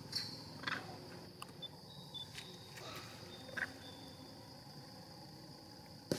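A steady high insect buzz with about six short, sharp animal squeaks or chirps scattered over the first four seconds, and a brief sharp click near the end.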